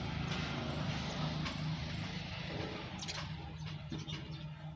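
Steady low engine hum from a motor vehicle, with a louder rush of noise over the first two to three seconds and a few sharp clicks around three seconds in.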